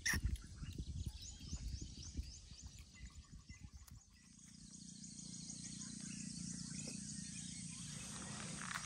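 Lakeside nature ambience with repeated high chirping calls and scattered low knocks. About four seconds in, it changes abruptly to a steady low hum under a steady high buzz.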